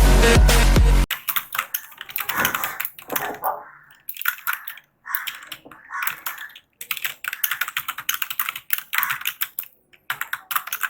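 Background music that cuts off suddenly about a second in, followed by fast touch-typing on a computer keyboard: quick runs of key clicks broken by short pauses.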